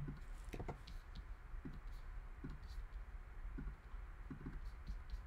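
Faint, irregular clicks of a computer mouse and keyboard in use.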